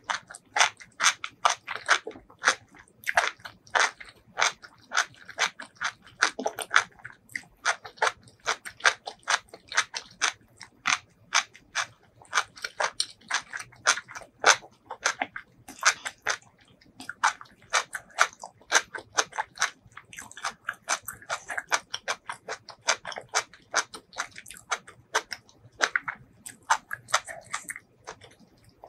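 Close-miked mouth sounds of a person chewing and biting soft, saucy food: a rapid, irregular run of wet clicks and smacks, several a second.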